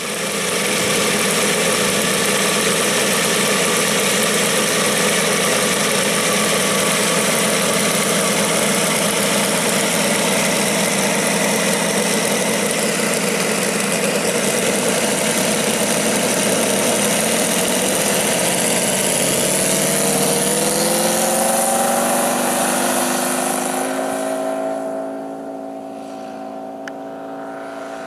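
ASP 400 five-cylinder radial engine of a giant-scale RC P-47 running loud and steady through the take-off run. Near the end its pitch rises and the sound gets fainter as the plane climbs away.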